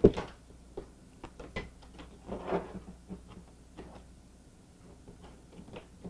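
A sharp knock at the start as the aluminium-foil-covered ornament is put down on the tabletop, then scattered light taps and a brief crinkle of foil and paper as the pieces are handled.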